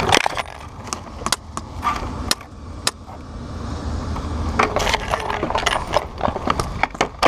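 Scattered sharp clicks and clattering snaps during an airsoft game, thickening about four and a half seconds in, over a low rumble of wind on the microphone.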